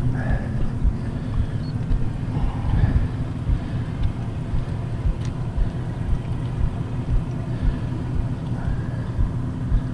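A steady low engine drone, with wind buffeting the microphone.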